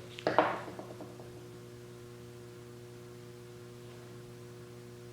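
Steady electrical mains hum, with a single short knock just under half a second in.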